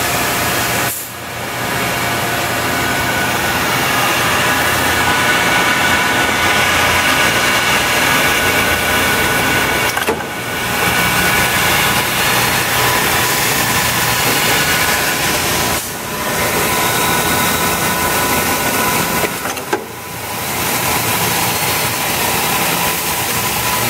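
A compound double miter saw running, a steady mechanical noise with a whine of several tones, dipping briefly four times as the saw heads are actuated.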